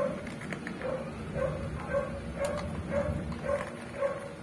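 Dogs crowding and eating dry kibble from a bowl, with a short whimpering call repeating about twice a second at a steady pitch.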